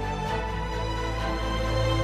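End-credits background music: sustained, soft instrumental chords that change about a quarter of a second in.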